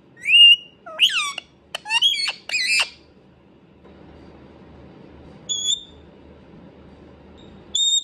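Indian ringneck parakeet calling: a quick run of loud calls with sliding pitch in the first three seconds, then two short high calls, one about halfway through and one at the end.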